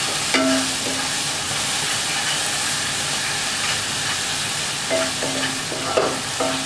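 Spice masala with tomato purée sizzling in oil in a non-stick kadai while it is stirred and scraped with a wooden spatula, being fried down. A steady sizzle, with short scraping strokes of the spatula about half a second in and again near the end.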